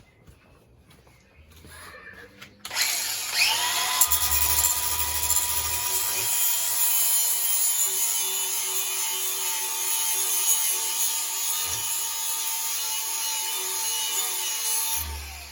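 Angle grinder with a flap disc starting about three seconds in, its motor quickly winding up to speed, then running steadily while it grinds the rust off a steel lawn mower blade, and switched off near the end.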